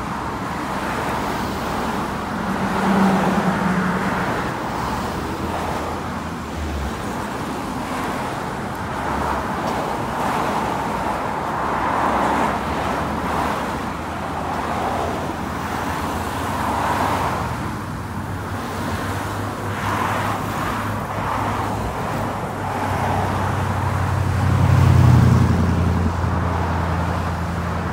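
Busy road traffic close by, cars passing one after another in swells every few seconds over a steady rush of tyres and engines. A low engine drone swells louder near the end.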